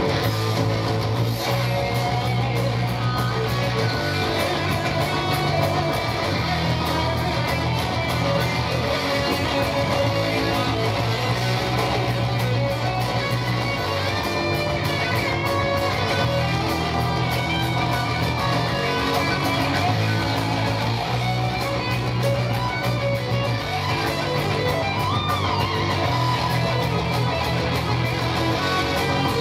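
A metal band playing live through an instrumental stretch with no singing: an electric bass riff in repeated blocks under distorted electric guitar, with a few bent lead notes.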